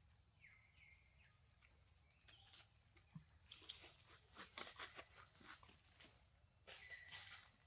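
Young macaques handling and eating banana pieces: a run of faint clicks, smacks and rustles in the second half, with a couple of short high squeaks, over a steady high background whine.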